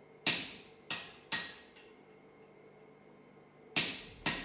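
Hammer blows on a handled hot punch, forged from coil spring steel, driving it into red-hot steel flat bar on an anvil to punch a hole: sharp metallic strikes that ring briefly. There are three strikes in the first second and a half, then a pause, then two more near the end.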